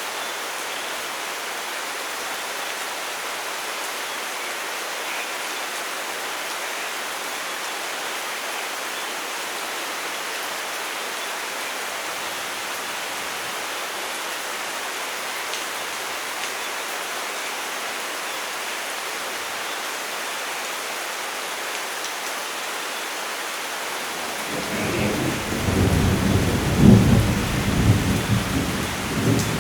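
Steady rain hiss, with a roll of thunder building near the end: a deep rumble that swells, peaks and begins to fade.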